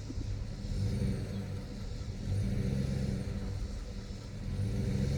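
Pickup truck's engine running at low revs while backing a camper trailer, the hum rising in three gentle swells as the throttle is fed on and off.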